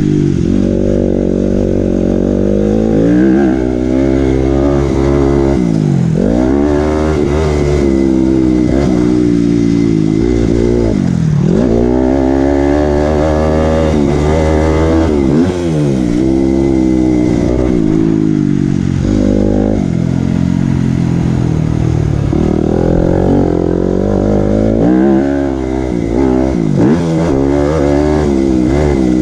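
Dirt bike engine heard from on board, revving up and falling back again and again as the throttle is opened and chopped around the track, with several sharp drops in pitch.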